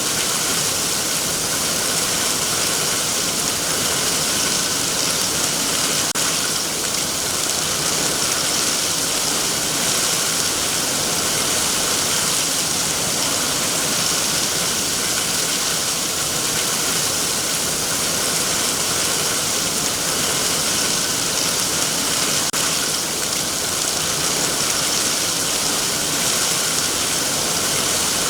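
Heavy rain falling steadily on trees and foliage, an even, unbroken hiss.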